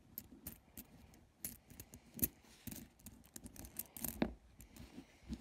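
Pennies clicking lightly against one another, irregular short clicks as a finger pushes along a row of coins and lifts one out.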